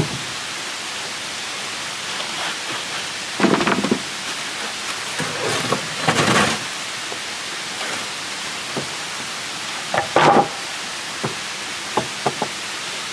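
Weathered wooden planks being laid and shifted on a log frame: several irregular knocks and scrapes of wood on wood, the loudest about three and a half, six and ten seconds in, with a couple of light taps near the end, over a steady background hiss.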